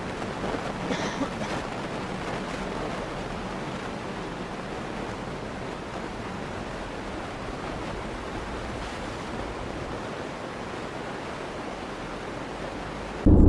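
Steady hiss of tyre and road noise heard inside a moving car on a wet road, with no distinct events. A much louder sound cuts in suddenly near the end.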